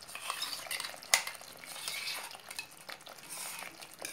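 A spatula scraping and clicking against a nonstick kadai as a thick paste is pushed into a simmering gravy, with a sharp knock about a second in, over a light sizzle from the pan.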